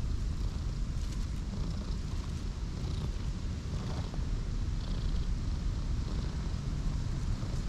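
A cream-coloured cat purring as its head is stroked: a steady low rumble.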